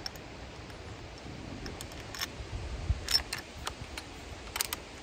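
A string of small, sharp metallic clicks from the Marlin 336 lever-action rifle's action as it is handled and readied to fire, most of them in the second half along with a soft low thump.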